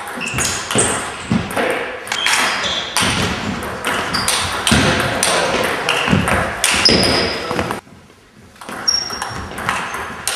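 Table tennis rallies: the ball clicking in quick succession off bats and table in a reverberant sports hall, with a short quiet break about eight seconds in.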